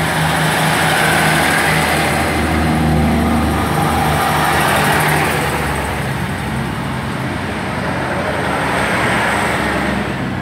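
A Class 150 Sprinter and Class 153 diesel multiple unit pulling away from the platform. Their diesel engines run under power, loud and steady, with the engine note wavering as the train gets under way.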